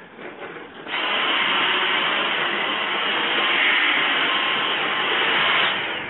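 Household vacuum cleaner switched on about a second in and running steadily, then switched off near the end as its motor starts to wind down.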